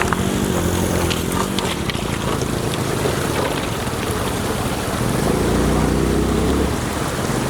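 Motor scooter engine running while riding a rough riverbed track, its tone rising and falling as the throttle changes, with wind rushing over the microphone.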